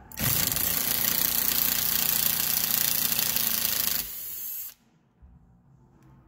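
Cordless power driver running in one loud burst of about four seconds as it backs out the T20 Torx screw holding the door panel. It drops to a quieter run for about half a second, then stops.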